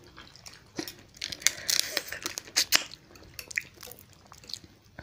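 Close-miked eating sounds: instant noodles in spicy broth slurped, with wet chewing and scattered sharp clicks and crackles as crab shell is picked apart.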